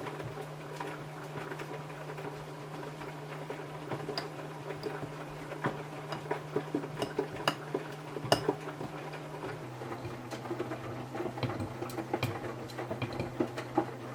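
Samsung washing machine tumbling a pair of fabric trainers: a steady motor hum with irregular knocks and clicks as the shoes hit the drum. The hum drops slightly in pitch about two-thirds of the way through, and the knocking stops right at the end.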